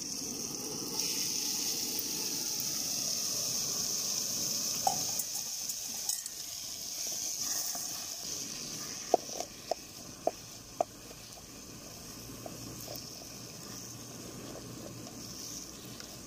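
Boiled river-snail meat frying with onions and tomatoes in a steel kadai, hissing and sizzling as it is stirred with a wooden spatula. About nine to eleven seconds in, the spatula knocks four times on the pan.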